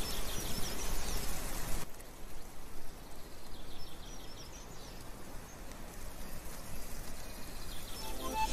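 Quiet outdoor ambience of tree leaves rustling in a breeze, with a few faint short bird chirps. The rustle drops to a softer hush about two seconds in, and more chirps follow around four seconds in.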